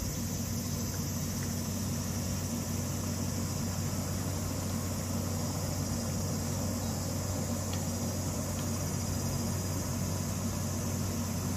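Steady low mechanical hum, like an idling motor, under a constant high hiss, with no call from the animal.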